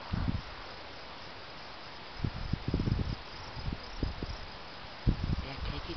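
Insects trilling in a steady high hiss. Gusts of wind buffet the microphone several times with low rumbles, the sharpest about five seconds in.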